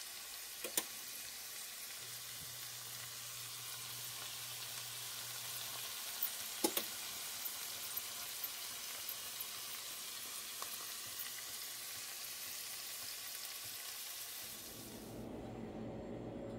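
Escargot frying in a pan with minced carrot, onion or garlic and herbs: a steady sizzle with a couple of sharp clicks. The sizzle cuts off near the end.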